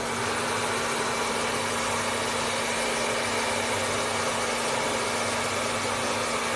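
A machine switched on: a steady hiss over a low hum starts suddenly and runs on without change.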